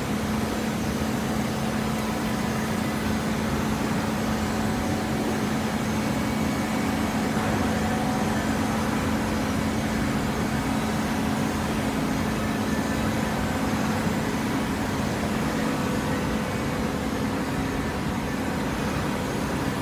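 Horizontal hydraulic baler running: a steady mechanical drone with a constant low hum.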